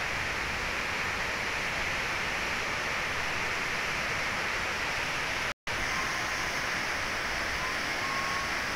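Loud, steady rush of a stream in flash flood, with a brief drop-out about five and a half seconds in before the same rush resumes.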